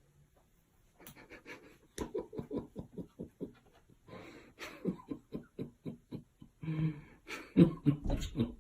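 An animal panting rapidly in quick, rhythmic breaths, growing louder near the end.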